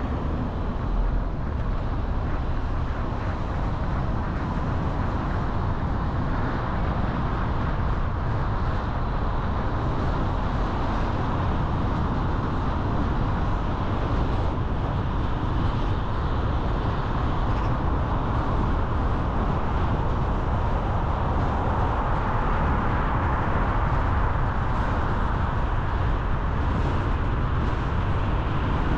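Steady road and engine noise of a car driving, an even rush with no sudden events.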